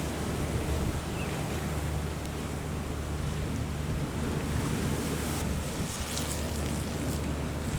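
Waves washing and wind blowing on a rough sea, with wind buffeting the microphone and a steady low hum beneath.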